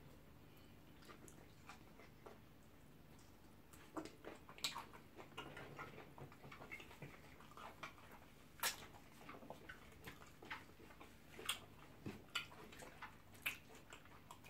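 Close-up mouth sounds of people eating pounded yam and ogbono soup with their hands: chewing, lip smacks and finger licking, heard as scattered sharp clicks and smacks from about four seconds in, the loudest a little before the nine-second mark.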